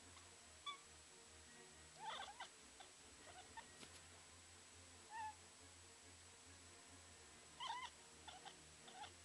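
Faint chirps and chattering calls from a domestic cat calling at birds. They come in scattered short bursts: a cluster about two seconds in, a single chirp past five seconds, and a quick run near the end.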